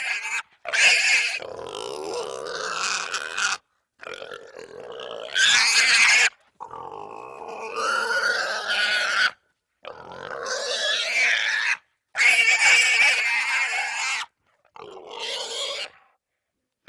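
Wild boar squealing: a run of about seven harsh, loud squeals of one to three seconds each, with wavering pitch, broken by abrupt short gaps of silence.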